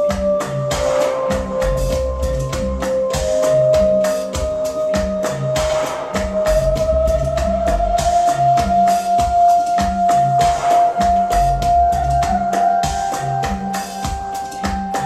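Recorded music played through YG Acoustics Carmel 2 loudspeakers: an instrumental passage with a steady drum beat and bass line, under a held lead tone that slides slowly upward in pitch.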